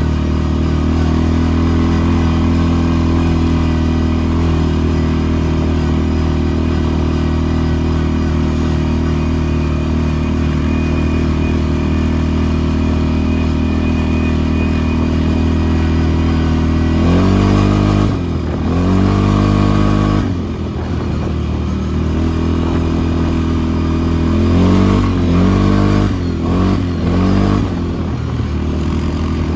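ATV engine running at a steady speed, then revving up and down: one long rise and fall in the middle, and several quicker revs a little later.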